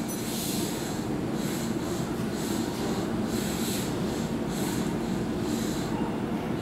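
Keihan 3000 series electric train standing at the platform, its on-board equipment running with a steady hum and a faint hiss that pulses about twice a second.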